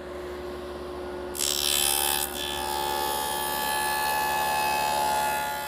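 Table saw with a stacked dado blade running, then cutting a rabbet along the edge of a cabinet panel: about a second and a half in, the steady hum of the free-running blade gives way to a much louder, hissing cut that carries on to near the end.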